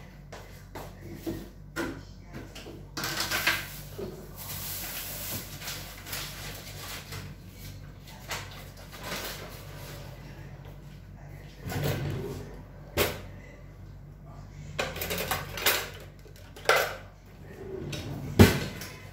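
Kitchen handling sounds: scattered knocks and clatters of things being moved, with a few seconds of hissing about three seconds in. Near the end a sharp knock as a cutlery drawer is pulled open, its contents rattling.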